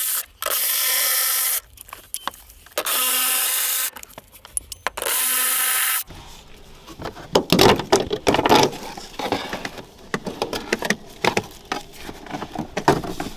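Cordless electric ratchet running in three short bursts of about a second each, backing out the bolts of a fuel-pump access panel. After that come clicks and rustling as the loosened bolts and the metal cover are handled and lifted off.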